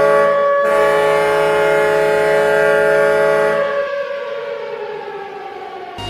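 Portland Winterhawks' arena goal horn sounding one long, loud chord. About four seconds in, its pitch slides down as the horn winds down.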